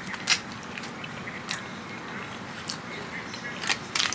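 Close-miked eating: chewing with wet mouth smacks and sharp clicks, about one a second.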